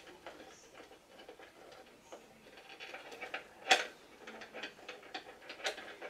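Small plastic clicks and rattles as hands handle and fiddle with a plastic item, with one sharper click about two-thirds of the way through.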